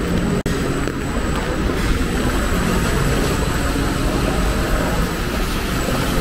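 Steady rumble of city street traffic, with the sound cutting out for an instant about half a second in.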